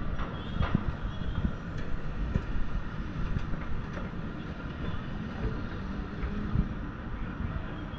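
Steady low rumble of city noise with many short knocks and clicks scattered through it.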